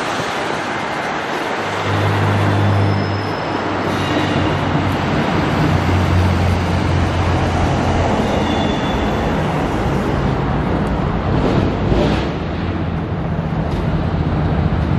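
Queensland Rail electric suburban train moving slowly through the station. A low hum sets in about two seconds in over a steady wash of city noise, with a few faint high tones.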